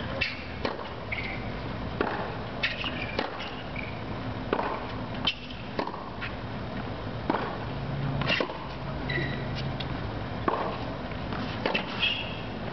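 Tennis rally on a hard court: sharp pops of racket strikes and ball bounces, about one every second or so, with a few short high squeaks.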